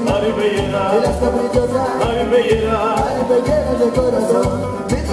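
Norteño band playing live through a stage sound system, over a steady pulsing bass beat.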